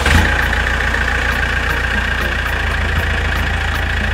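Small engine of a miniature DIY tractor running steadily, with a fast, even putter.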